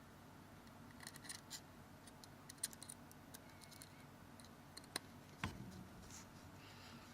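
Faint clicks and small scrapes of a small Phillips screwdriver working tiny screws into a Samsung Galaxy S2's frame, with one louder knock about five and a half seconds in.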